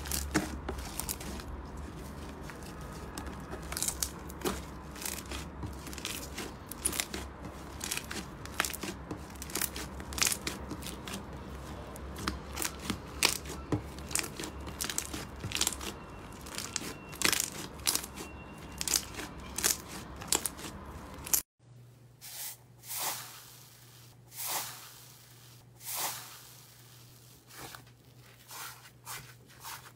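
Hands squeezing and kneading a glossy slime, giving rapid sticky clicks and pops as air pockets burst. About twenty seconds in the sound changes to separate crunches and crackles as fingers press through the dry, crisp crust of an iceberg slime.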